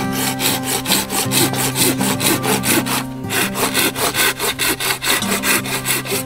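Pruning saw cutting through a green sapling pole with quick, even back-and-forth strokes, about four to five a second, pausing briefly about three seconds in.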